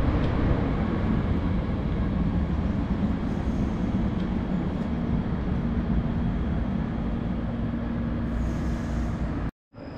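DB Class 430 S-Bahn Stuttgart electric multiple unit pulling along the platform: a steady rumble of wheels and running gear, with a low motor hum holding one note from about halfway. The sound cuts off suddenly just before the end.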